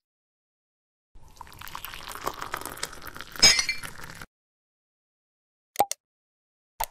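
Intro sound effect of an eggshell cracking: about three seconds of crackling and clinking, with the loudest sharp crack in the middle. Two short plops follow near the end.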